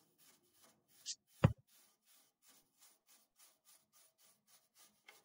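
A hand brush scrubbing dried, caked wet-blast sand off the bare sheet metal of a car body panel, in quick scratchy strokes about three a second. The sand has dried hard onto the metal. There is one sharp knock about a second and a half in.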